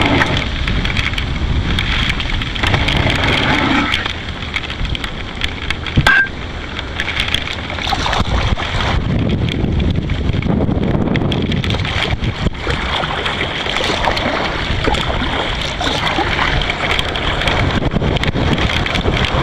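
Strong wind buffeting the microphone over rough, splashing water around a kayak, with many small splashes throughout and one sharp knock about six seconds in.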